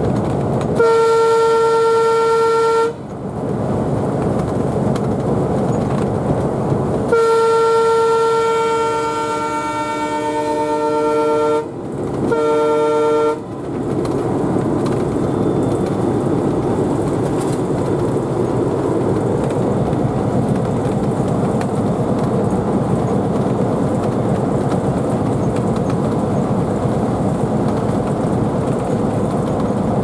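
Air horn of an Alco WDM-3D diesel locomotive sounded from inside its cab in three blasts: one of about two seconds, a longer one of about four seconds in which a second, lower note joins, and a short third. Under the horn and after it is the steady running noise of the locomotive's diesel engine and its wheels on the rails.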